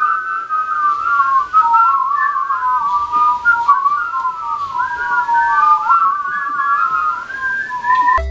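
A whistled tune, two whistled lines weaving around each other and wandering up and down. It breaks off abruptly just before the end.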